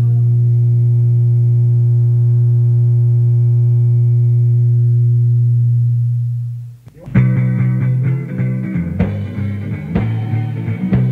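Raw home four-track recording of a 1983 anarcho-punk demo: a long held low note rings on and dies out, then after a brief gap about seven seconds in the next song starts with guitar, bass and drums.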